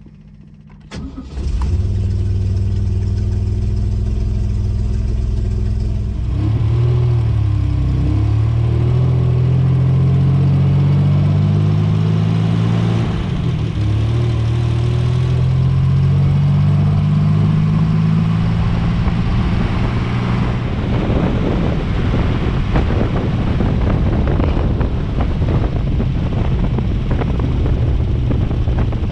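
MGC-GT's 2.9-litre straight-six starting about a second in and idling, then pulling away with the revs rising and dropping back through the gear changes, and settling into steady running at speed with road noise.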